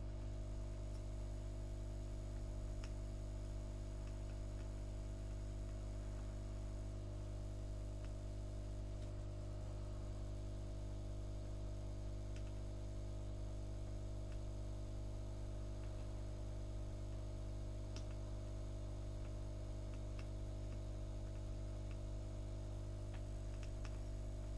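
Steady low electrical hum, with a few faint ticks now and then.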